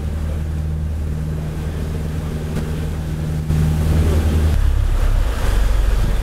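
Motorboat engine running steadily under way, with water rushing along the hull and wind on the microphone. About four and a half seconds in, the hum turns to a deeper, rougher rumble.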